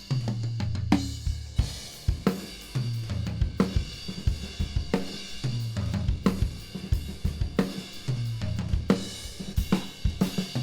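Studio recording of an acoustic drum kit playing a groove with kick, snare and cymbals, with a tom fill about every 1.3 seconds that steps down in pitch from rack tom to floor tom.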